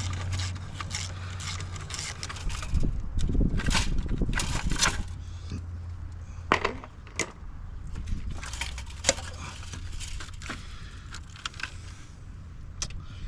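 Hand tools working on a GM 5.3 V8's exhaust manifold and its bolts. A run of quick, evenly spaced clicks comes first, then a louder stretch of scraping and knocking, then scattered single metallic clinks.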